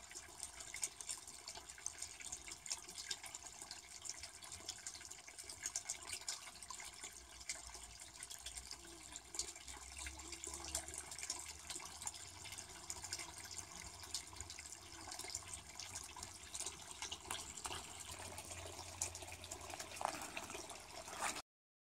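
Faint, steady trickle of water in a garden pond, full of small drips and splashes.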